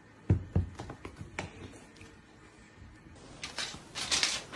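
Two sharp thumps, then a few lighter knocks, as two cats spar with their paws on an upholstered chair. Near the end come a few short, harsh, noisy bursts.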